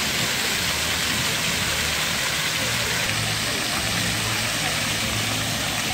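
Water jets of a plaza floor fountain splashing steadily onto wet paving, an even rushing hiss.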